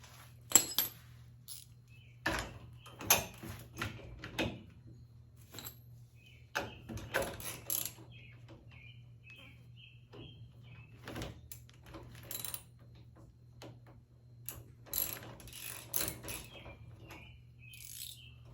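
Scattered metal clicks, clanks and knocks of a Boat Buckles ratcheting tie-down strap being fitted and bolted onto a boat trailer. In the middle comes a run of small quick clicks, like a ratchet being worked.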